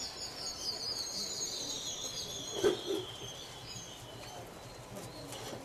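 Birds chirping in quick, high twittering notes that die away about four seconds in, with one short knock near the middle.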